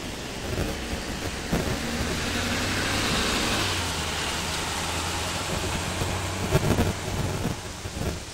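Trucks on the street: a swell of engine and road noise rising to a peak about three seconds in and fading as a vehicle drives past, over a low steady engine hum, with wind rumbling on the microphone and a few thumps near the end.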